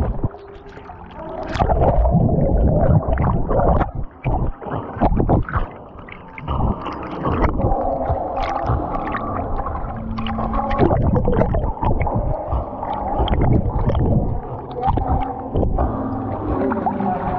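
Pool water sloshing, gurgling and splashing around a camera strapped to a swimming dog, muffled whenever the camera dips into the water, in irregular surges with the dog's paddling.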